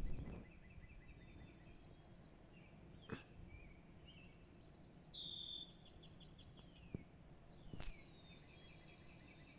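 Several songbirds singing at dawn: quick series of repeated high chirps, a falling note, and fast high trills with a short whistle in the middle. Two sharp clicks cut in about three and eight seconds in.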